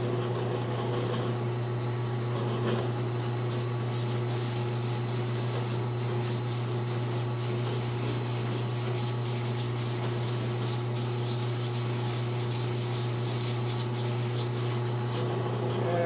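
Drill press running steadily, spinning a drill bit wrapped in sandpaper while a bushing is held over it and worked up and down, sanding out the bushing's bore: a constant motor hum with a rubbing hiss on top.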